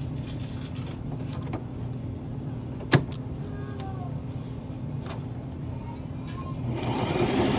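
Domestic sewing machine paused while the fabric is repositioned: a low steady hum, a single sharp click about three seconds in, then the machine starts stitching again near the end.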